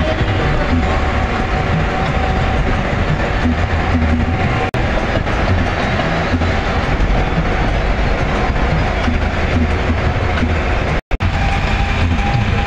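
Steady engine and tyre noise inside a vehicle travelling at highway speed. The sound cuts out very briefly twice, about five and about eleven seconds in.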